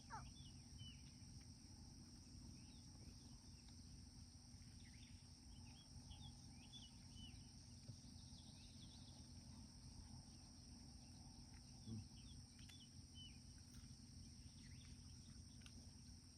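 Faint outdoor ambience: scattered short bird chirps over a steady high-pitched insect drone and a low rumble, with one brief low thump about twelve seconds in.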